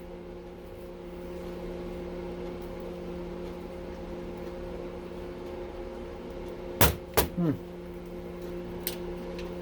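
Steady electrical hum, with two sharp knocks close together about seven seconds in and a couple of light clicks near the end, from a breaker being handled on the bench.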